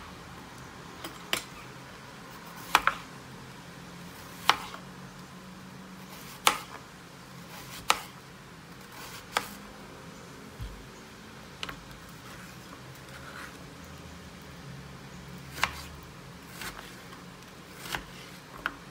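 Kitchen knife slicing through a peeled hairy gourd (green marrow) on a plastic cutting board, with a sharp knock each time the blade meets the board: about a dozen irregularly spaced cuts.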